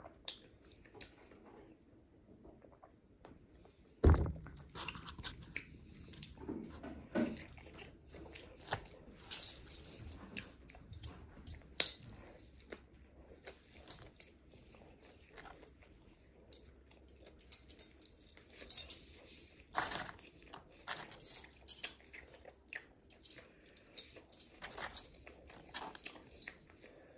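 Close-miked mukbang eating: chewing and biting on mouthfuls of a McDonald's Big Mac and fries, with scattered small clicks from handling the food and its cartons. There is a sharp knock about four seconds in.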